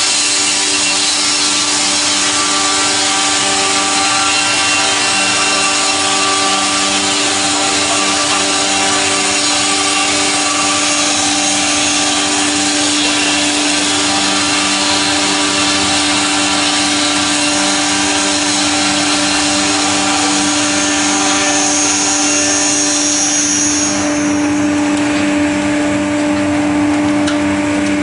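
StrojCAD KR-58 horizontal twin-blade circular sawmill sawing a log: a steady machine hum under the rough, dense noise of the blades cutting wood. Near the end the cutting noise drops away while the blades keep running.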